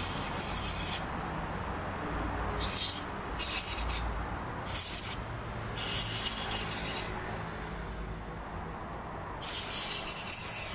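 Aerosol carburettor and injector cleaner sprayed through a thin straw onto a small engine part, in about six short hissing bursts, the longest about a second and a half.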